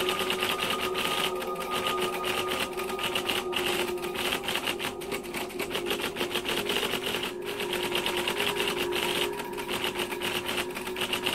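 Fast, continuous typewriter key clatter used as a sound effect for on-screen text being typed out, with a steady held tone beneath it.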